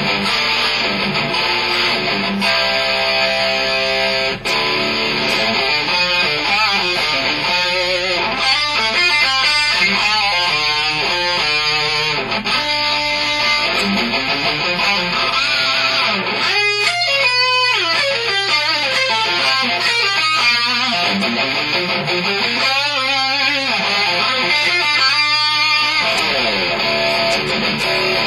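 Electric guitar played through an amplifier: a continuous run of picked lead notes, many of them bent up and down in pitch.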